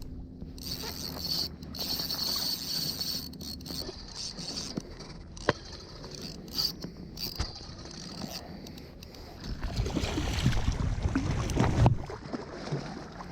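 Shallow surf water sloshing and lapping, with a sharp click about five and a half seconds in and louder splashing near the end.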